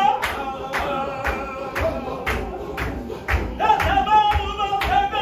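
A group of men chanting a Qadiri Sufi zikr together, with a held sung note over steady hand-clapping at about three claps a second.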